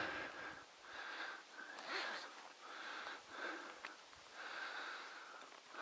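A person breathing heavily while walking, close to the microphone: a run of hissing breaths, about one a second.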